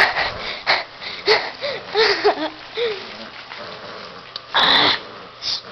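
Breathy, wheezing human laughter in short gasps, with a few squeaky rising-and-falling voice sounds. Near the end comes a loud rush of rustling or handling noise.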